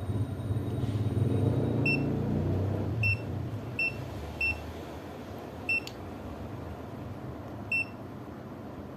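Aneng 681 digital multimeter's beeper giving six short, high-pitched beeps, unevenly spaced. A low rumble sits under the first few seconds.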